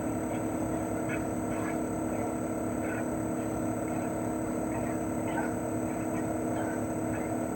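CHOFU AE-2844PX mini-split air conditioner outdoor unit running steadily in cooling mode. Its GMCC single-rotary inverter compressor gives a hum made of several steady tones, and the propeller fan adds an even rushing noise.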